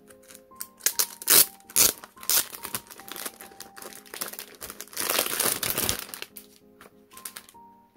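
Packaging crinkling as it is handled and unwrapped during an unboxing, in irregular crackles, with sharp loud bursts in the first two seconds and a denser stretch about five seconds in. Soft piano music plays underneath.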